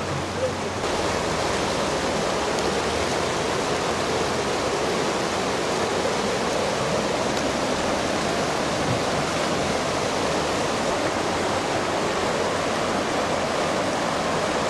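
Swollen, muddy floodwater rushing and churning past the bank in a steady wash of noise, which gets louder about a second in.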